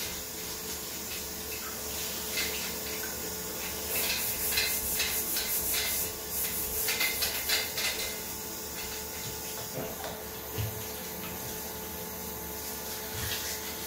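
Bathroom basin tap running into a ceramic sink while a sponge scrubs the bowl under the stream. A run of quick scrubbing and splashing strokes comes about four seconds in.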